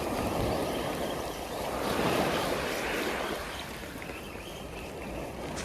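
Surf washing onto a beach, swelling about two seconds in and then easing off.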